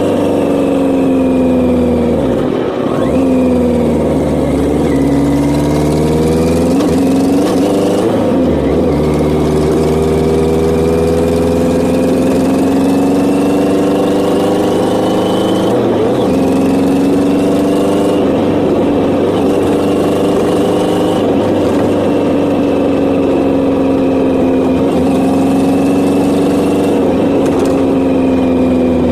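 1983 Yamaha XJ900's air-cooled inline-four engine running under way. Its note dips and climbs as the bike slows and speeds up, broken several times by gear changes, with a steady rush of wind over it.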